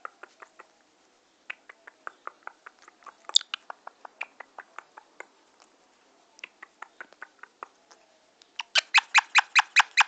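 Indian ringneck parakeet chattering in quick trains of short clicking chirps, about five a second, with short pauses. There is one higher, sharper note about three and a half seconds in. Near the end the chirps turn much louder.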